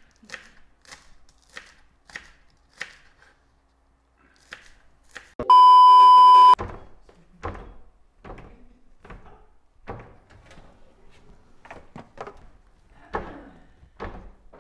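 A censor bleep: a loud, steady one-second beep tone about five and a half seconds in. Around it runs a string of short, sharp knocks, beginning with a knife chopping on a cutting board.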